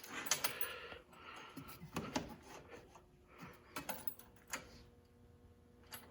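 Handling noises: scattered light clicks and metallic clinks, with the clearest ones at the start, about two seconds in and around four seconds in, over a faint steady hum.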